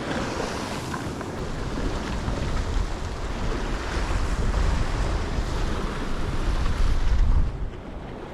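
Wind rumbling on the microphone over the steady wash of waves on a rocky shore; the wind rumble eases near the end.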